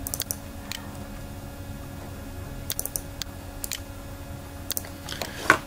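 Computer mouse clicks in small clusters, some as quick double-clicks, over a faint steady hum.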